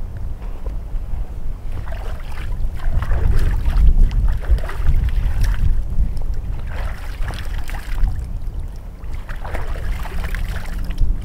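Lake water splashing from cupped hands as a man washes his face at the shoreline, in about four scoop-and-splash bouts, over a heavy low rumble of wind on the microphone.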